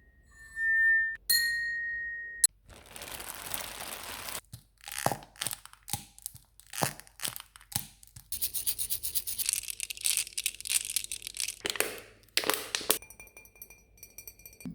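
A string of homemade sound effects made with household items: a steady high tone for about two seconds, then a few seconds of tearing, crumpling noise, then scattered sharp clicks and snaps and a long stretch of dense crackling.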